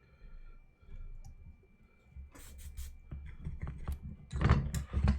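Small clicks and taps of tools and a circuit board being handled on a workbench, with a louder cluster of knocks and clatter near the end.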